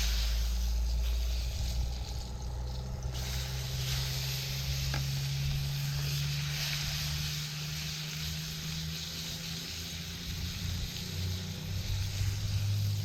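Food sizzling in a pan over a campfire, a steady frying hiss. Beneath it runs a low steady drone whose pitch shifts twice.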